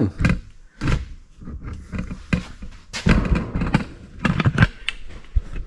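Handling noise as the camera is picked up and moved: irregular rustling with light knocks and clicks.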